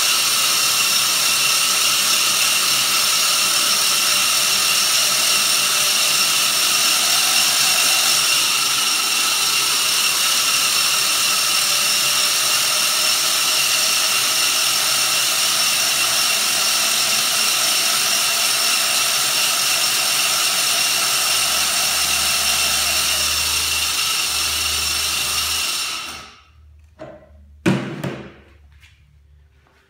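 Electric drill spinning a Toro GreensMaster Flex 21 reel backward against its bedknife during backlapping: a steady drill whine together with the noise of the reel blades grinding on the bedknife through lapping compound. The drill stops about 26 seconds in, followed by a couple of knocks as it is set down.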